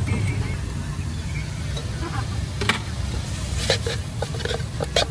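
Metal ladle knocking and scraping against a wok while noodles are stir-fried, a few sharp clanks from about halfway through, over a steady low rumble.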